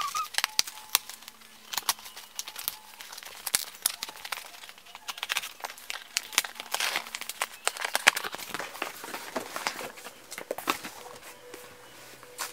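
Cardboard shipping box being opened with scissors: tape and cardboard flaps scraping, crinkling and tearing, with a busy run of small clicks and rustles as the books inside are handled.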